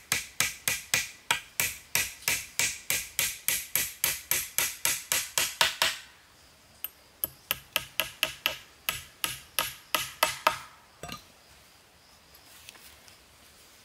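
Rapid, even hammer strikes, about four a second, in two runs of several seconds with a short pause between, followed by one duller knock.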